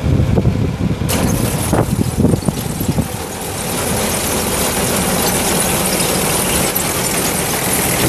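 A tractor running and driving a 2009 New Holland BR7090 round baler, which clatters and squeals as it turns. There is uneven knocking for the first three seconds, then a steady mechanical running noise.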